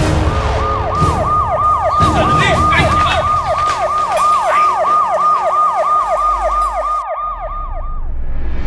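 Emergency-vehicle siren in fast yelp mode: a rapid rising-and-falling wail repeating about three times a second, which stops shortly before the end.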